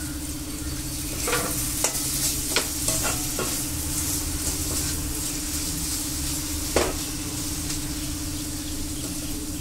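Chopped capsicum and tomato-onion masala sizzling in a black iron kadai while a steel ladle stirs and scrapes through it, lightly sautéing the capsicum. Sharp knocks of the ladle on the pan come several times in the first few seconds, with one louder knock later.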